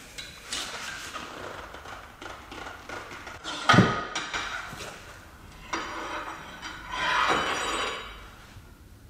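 Metal clanking and scraping from a long metal bar levered against a stuck screw-in tow hook at a car's front bumper, with one sharp loud metallic knock near the middle and a longer grating scrape later on.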